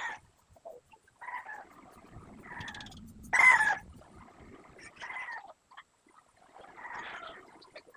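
About half a dozen short animal calls, one every second or two, the loudest about three and a half seconds in.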